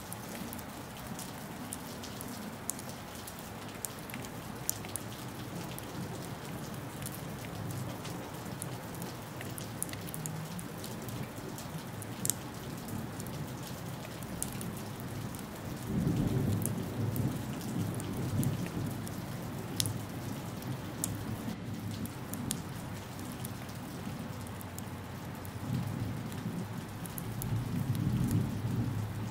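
Steady rain falling, with sharp ticks of individual drops striking nearby surfaces. A long, low thunder rumble swells about halfway through, and another comes near the end.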